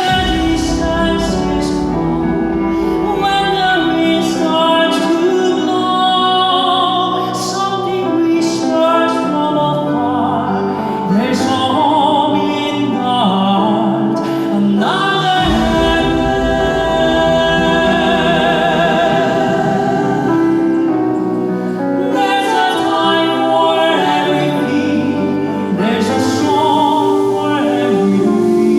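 Male vocal quartet singing in a full operatic crossover style, with strong vibrato over sustained band and orchestral accompaniment, heard live from the audience.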